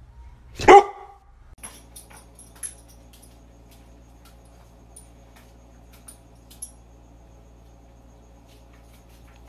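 A dog gives one loud, short, falling yelp less than a second in. After that comes a faint steady hum with scattered light ticks and clicks as a small dog moves about on a tiled floor.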